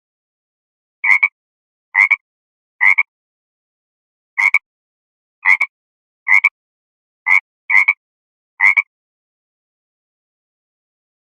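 An animal's short call repeated nine times at irregular intervals, each call brief and sounding the same.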